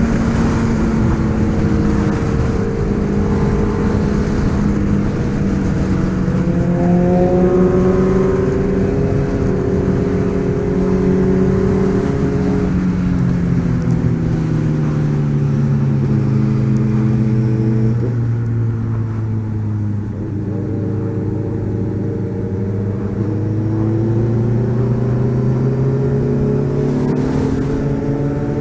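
Car engine running under way, its note falling slowly through the middle as the car slows, then rising again near the end as it picks up speed.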